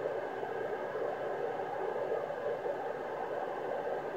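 Steady FM static hissing from the speaker of an Icom IC-746PRO transceiver tuned to the ISS downlink on 145.800 MHz. The space station is below the horizon, so there is no signal, only receiver noise.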